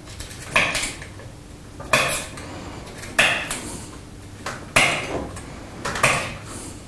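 Pressure flaking of glass against a small wooden anvil: five sharp snaps about a second and a quarter apart, each a flake popping off the glass edge under a hand-held pressure flaker, followed by a brief crackling scrape.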